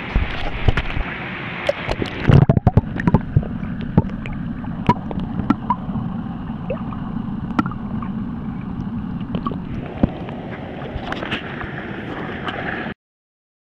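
River water sloshing and splashing around hands and a hybrid striped bass being released in the shallows. About two seconds in, the sound turns muffled, heard from underwater: a low rush with scattered clicks and knocks. It comes back up to open splashing near the end and then cuts off suddenly.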